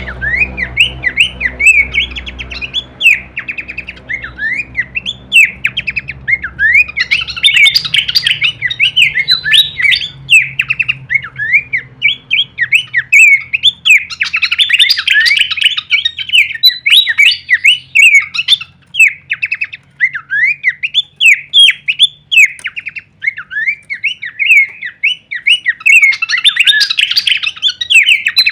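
A pelanduk semak babbler singing a rapid, varied run of chirping notes with no break, in bursts that come and go in intensity. This is the bird's full 'kleperan' variation song.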